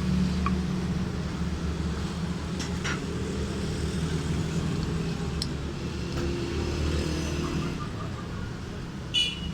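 A motor running with a steady low hum, with a few light clicks and a short high-pitched squeak near the end.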